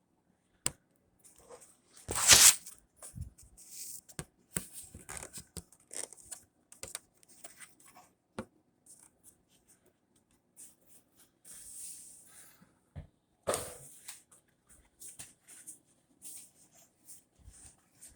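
Handling noise from a replica championship title belt being put on around the waist: scattered clicks, rustles and scrapes. A loud noisy rasp lasting under a second comes about two seconds in, and another about thirteen seconds in.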